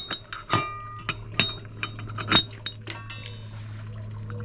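Metal quick-release awning bracket pieces clinking and knocking together as they are handled and fitted, with a couple of short ringing clinks. A steady low hum runs underneath from about half a second in.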